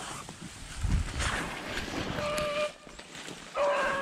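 Feet and body pushing through dry grass and brush, with a beagle giving two short, steady-pitched bawls, the first about two seconds in and the second near the end.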